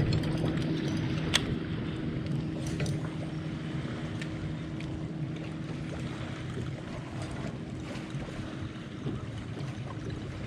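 Bass boat's electric bow trolling motor humming steadily as the boat creeps along, with water washing against the hull. A sharp click about a second in. The hum weakens near the end.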